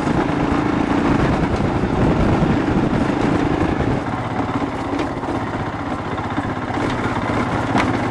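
Royal Enfield Himalayan's 411 cc single-cylinder engine running while the bike is ridden over a rough dirt trail. It eases off slightly about four seconds in, with a couple of sharp clicks later on.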